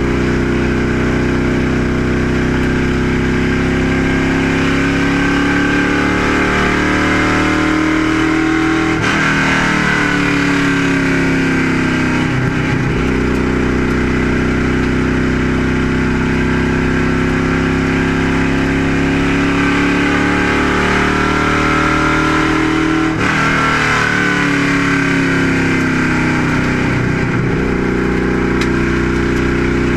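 Race-prepared stock car's V8 engine at full throttle, heard from inside the cockpit over road and wind noise. The engine note drops about nine seconds in as the driver lifts for a corner, then climbs back, and does the same again near the end of the lap, about fourteen seconds later.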